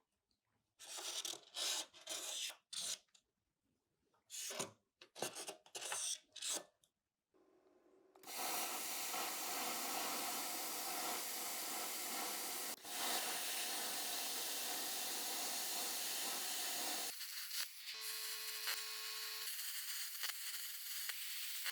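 Plasma cutter cutting sheet steel: a string of short hissing bursts, then one long, steady cut lasting about nine seconds.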